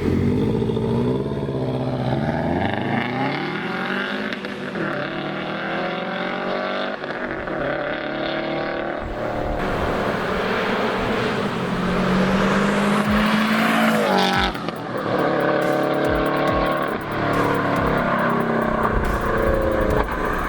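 Subaru WRX STI's turbocharged 2.5-litre flat-four engine through an MRT turbo-back stainless exhaust with a cat-less downpipe, revving and accelerating, its pitch climbing and dropping several times.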